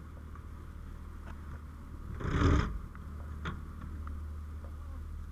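Fire apparatus diesel engine idling with a steady low rumble. A short loud burst of rushing noise comes about two seconds in, followed by a couple of light clicks.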